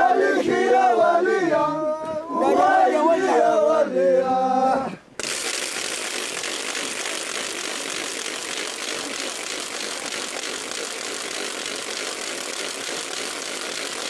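Men's voices singing a huaylia song together in long, held lines, breaking off suddenly about five seconds in. After that there is only a steady, even hiss.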